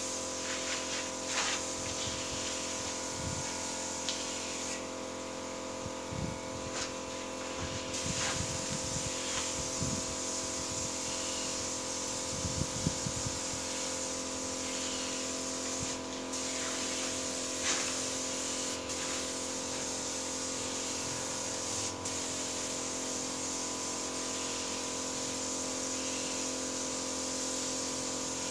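Air-fed paint spray gun hissing steadily as it sprays clear coat, over a constant machine hum, with a few dull knocks in the first half.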